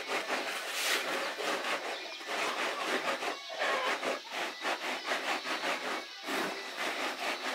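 Hands rubbing and sweeping rice flour across a woven bamboo tray, a quick, repeated dry scratching and rustling.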